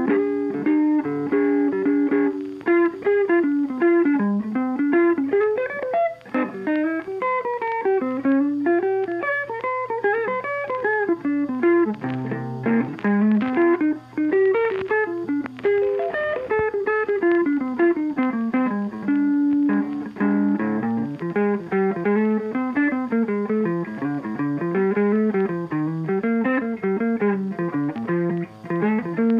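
Background music: a plucked guitar playing a busy, moving melody with a steady pulse.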